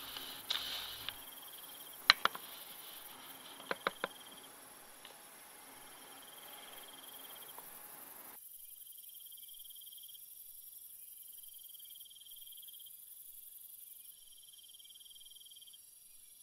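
Crickets chirping in a steady high trill, broken into pulsed stretches after about eight seconds when all lower sound suddenly drops out. Over the first four seconds there are a few sharp plastic clicks from the handled deli cup, the loudest about two seconds in and three quick ones near four seconds.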